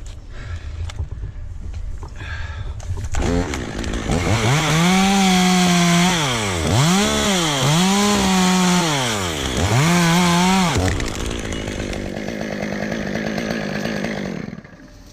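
Chainsaw revving up to full throttle and cutting, its pitch dipping several times as the chain loads up in the wood. It comes off the throttle after about eleven seconds.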